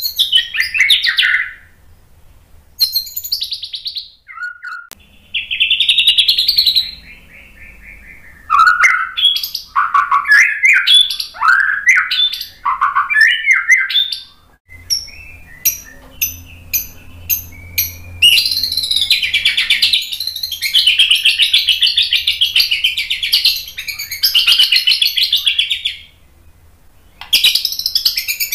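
White-rumped shama singing loudly in separate phrases of falling, bending whistles. About halfway through it gives a run of sharp clicks, about three a second, then a long, fast chattering trill, and one more phrase comes near the end.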